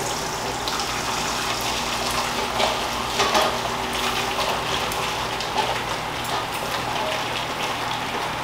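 Pasta water pouring from a pot through a stainless-steel mesh colander into a bowl below as the pasta is drained, a steady splashing gush with a few light knocks.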